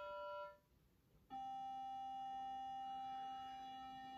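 Electronic tuning reference tone: a steady held G fades out in the first half-second, and after a short silence a steady reference C starts about a second and a half in and holds.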